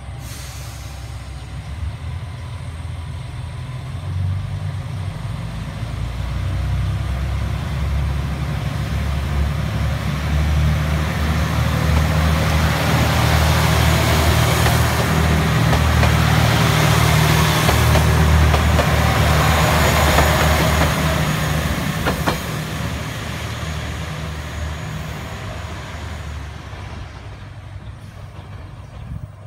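Limited express diesel multiple unit departing: its diesel engines run under power as the train pulls out and passes, building to loudest about halfway through, then fading as it moves away. A single sharp click comes shortly after the loudest part.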